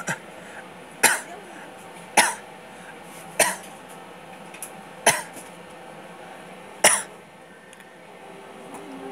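A person coughing repeatedly: six sharp coughs, one to two seconds apart, over a steady low hum.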